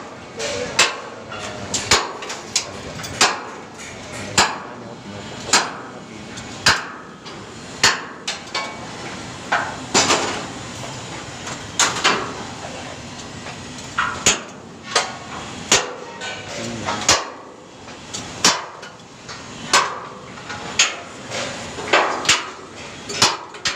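Hammer blows on the steel connecting pins of a tower crane mast section, driving the pins into the corner joints: sharp metal-on-metal strikes, about one a second.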